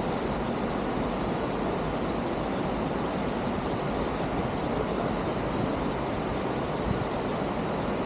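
Steady rushing of water falling at Tegenungan Waterfall, an even, unbroken noise.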